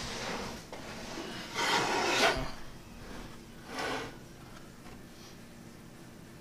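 Plywood plenum box scraping and rubbing on a plywood workbench as it is shifted and tipped onto its side: a loud scrape ending in a knock about two seconds in, and a shorter scrape about four seconds in.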